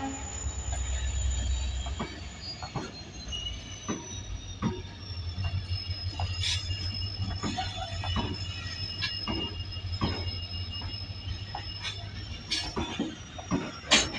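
Train rolling slowly past, with a low rumble, irregular clicks and knocks from the wheels over the rail joints, and a thin high wheel squeal that slides slowly down in pitch.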